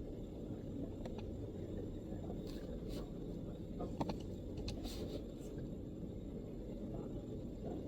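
A few scattered, unhurried keystrokes on a MacBook keyboard, soft clicks spaced irregularly, the loudest about halfway through. Under them runs a steady low background rumble.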